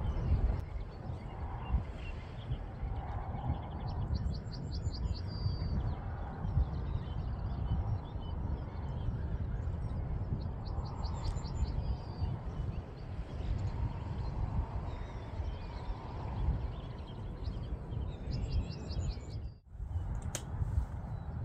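A bird's call, a quick run of rapid high notes, heard three times about seven seconds apart, over a steady low rumble of wind on the microphone.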